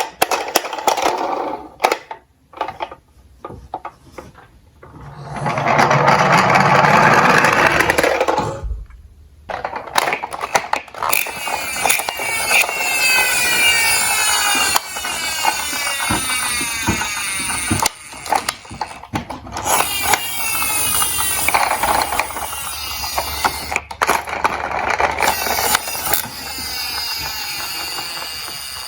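Die-cast toy cars rolling down a slope, with many clicks, knocks and rattles as the cars run and bump into each other.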